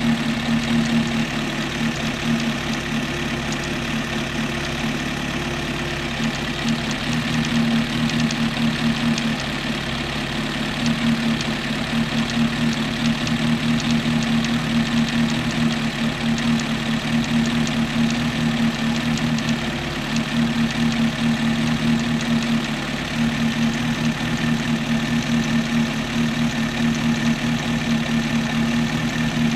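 Suzuki Bandit 1200's inline-four engine idling steadily, with a fast light ticking on top: the noise from the stator cover that appears only when the engine is hot.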